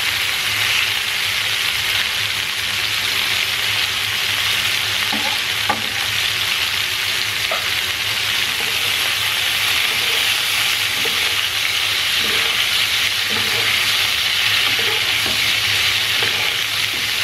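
Leg of lamb steaks searing in hot oil and melted butter in a frying pan: a steady, even sizzle with a few faint clicks here and there.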